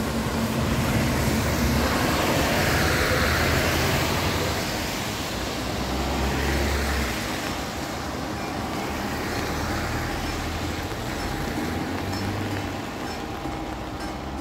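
A lorry and cars pass on a wet road, their tyres hissing through the water, loudest about two to four seconds in. From about halfway, the level crossing's mechanical warning bells start ringing steadily under the traffic.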